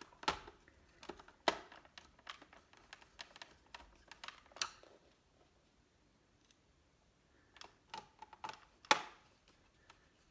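Irregular plastic clicks and small knocks from a laptop's plastic case parts being handled and pushed back into place, with a few louder snaps among quieter ticks.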